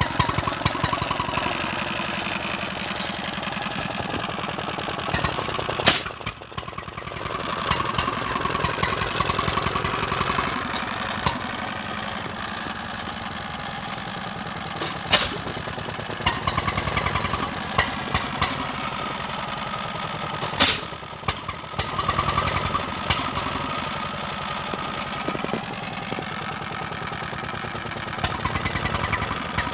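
Petter M 4 hp single-cylinder stationary engine running steadily, a rapid even beat of exhaust firing, with a few sharper knocks standing out now and then.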